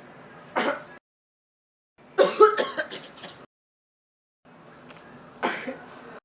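A person coughing: a single cough, then a fit of several rapid coughs about two seconds in, then another single cough near the end. Each take starts and stops abruptly, with dead silence between.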